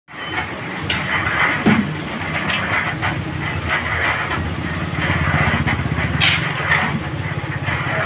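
An engine running steadily under the work noise, with a sharp clatter about six seconds in.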